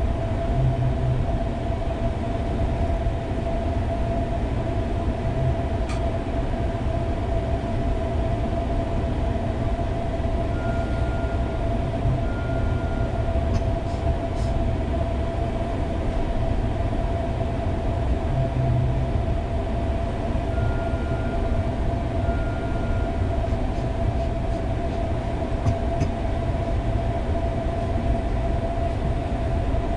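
Steady low rumble with a constant electronic hum inside a motion-simulator ride capsule waiting for launch. Twice, about ten seconds apart, a pair of short high electronic beeps sounds over it.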